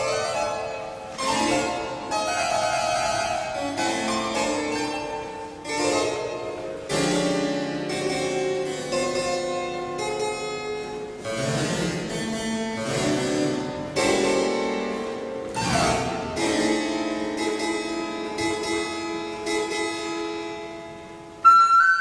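Harpsichord playing alone: plucked chords and runs that ring and die away, struck at uneven intervals with short gaps between. Near the end a recorder comes in on a long held high note.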